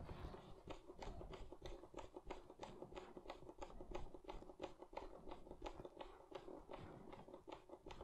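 Small screwdriver turning a screw into a plastic battery-compartment cover, making a run of faint, quick clicks.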